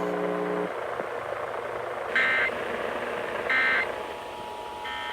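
Emergency Alert System data header on a radio broadcast: three short, shrill warbling data bursts about 1.4 s apart over a background hiss. A steady two-tone attention signal starts before the last burst, opening the required monthly test.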